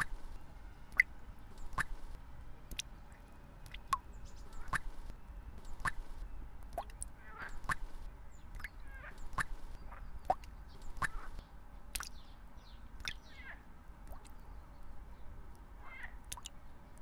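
Birds calling outdoors: sharp ticks about once a second and scattered short chirps, over a low steady rumble.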